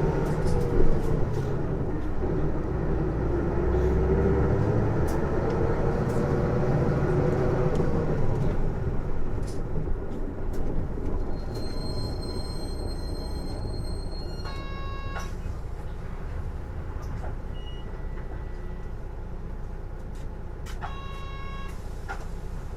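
Isuzu PJ-LV234L1 city bus with a Nishi Nippon Shatai body, heard from inside while running. A whine, louder than the engine and unfamiliar-sounding, rises and falls in pitch over the first eight seconds or so over a low rumble; the uploader suspects it comes from the drivetrain. The noise then eases, and short electronic tones sound mid-way and again near the end.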